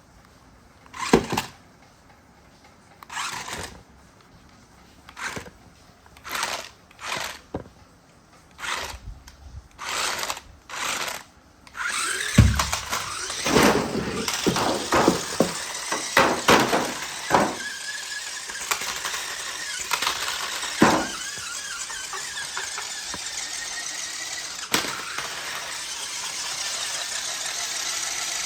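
Remote-control toy stunt car: short separate bursts of its electric motor and spinning wheels, then from about twelve seconds in it runs without pause, with many sharper spikes over a steady high noise.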